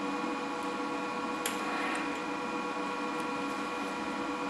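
Lincoln Power MIG 210 MP wire feed motor and drive rolls running steadily, feeding wire with a steady whine, faint irregular ticks and one sharp click about a second and a half in. The drive roll assembly is bouncing up and down as it feeds, which the owner puts down to something in the wire drive not being machined right.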